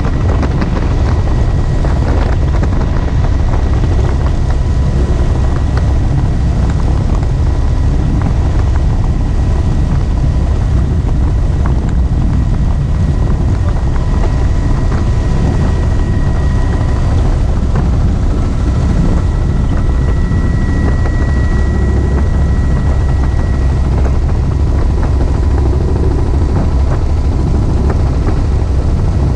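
Helicopter in flight with its doors off: a loud, steady rumble of rotor and engine, with a thin steady whine over it.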